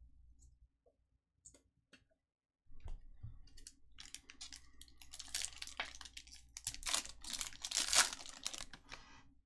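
Foil wrapper of a Topps Chrome baseball card pack being torn open and crinkled by hand. The crackling starts about three seconds in and is loudest near the end.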